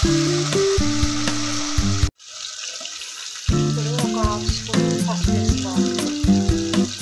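Chopped onions frying and sizzling in hot oil in an aluminium pressure cooker as a steel ladle stirs them, with background music over it. About two seconds in the sound cuts out abruptly and comes back a second and a half later.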